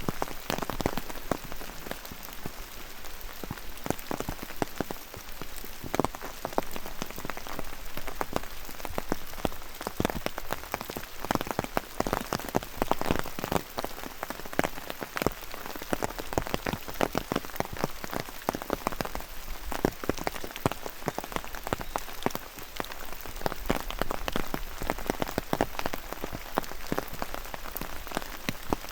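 Rain falling, many separate close drop impacts several times a second over a steady hiss.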